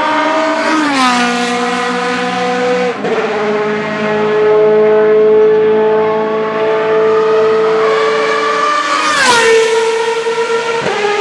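Racing car engines at high revs passing close by, the pitch dropping sharply as each goes past, about a second in and again about nine seconds in. In between, an engine holds a steady high pitch.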